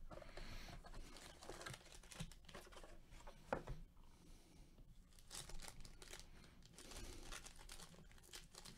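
Foil wrapper of a Topps Tier One baseball card pack crinkling and tearing as it is handled and opened with gloved hands. The sound is faint, with one sharp tap about three and a half seconds in.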